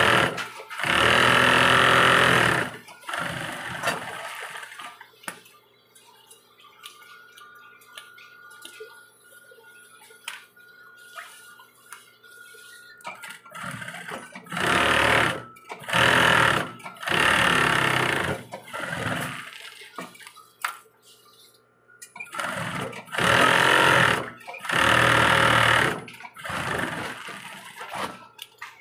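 Industrial sewing machine stitching in short runs of one to two seconds, a cluster of three runs at the start, four more about halfway through and four near the end. A faint steady hum carries on between the runs.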